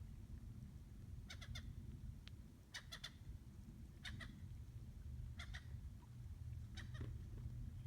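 An animal's short, high calls, given in quick pairs about every second and a half, over a steady low rumble.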